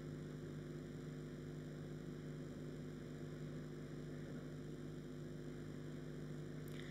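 Steady electrical hum with a faint hiss underneath, unchanging throughout.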